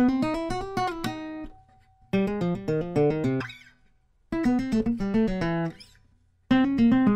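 Background music in short melodic phrases of quick notes, about four phrases with brief pauses between them.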